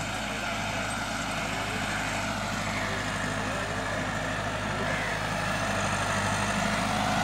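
Diesel tractor engine running steadily under load while working the field, slowly growing louder.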